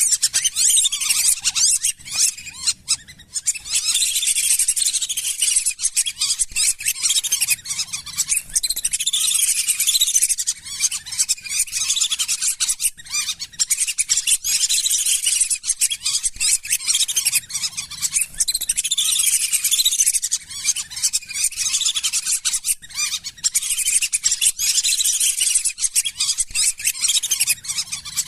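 A flock of lesser whistling ducks calling without a break, many short, high whistled chirps overlapping into a dense chatter.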